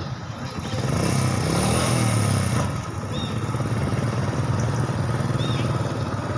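A small engine running nearby. It rises in pitch and gets louder about a second in, then settles back and runs steadily.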